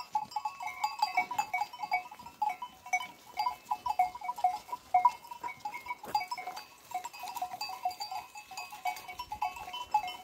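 Flock of sheep on the move, the small bells on their necks clinking and ringing continuously in an overlapping jangle.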